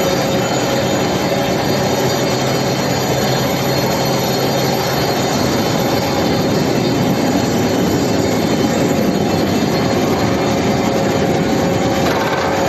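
Square billet induction heating furnace line running: a loud, steady mechanical noise with a constant whine in it.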